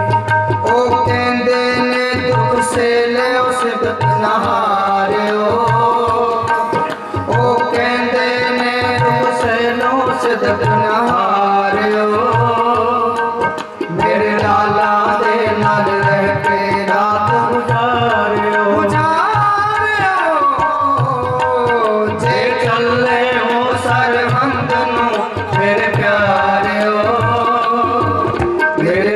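Sikh shabad kirtan: sung melody accompanied by harmonium, with a steady tabla beat underneath.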